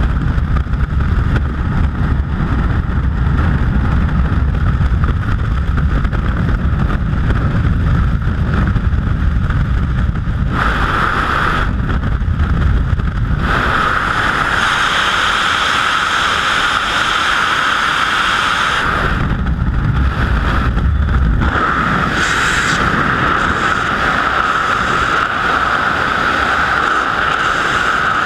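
Freefall wind rushing over the camera's microphone: a loud, steady buffeting of air that changes in tone abruptly several times.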